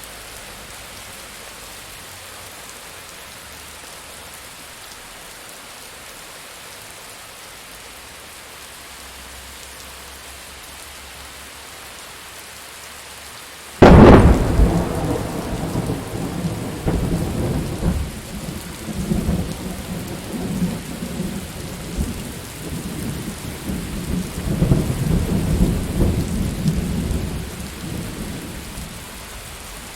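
Steady rain with a thunderclap about halfway through: a sudden sharp crack, then a long rolling rumble that swells again and fades back into the rain near the end.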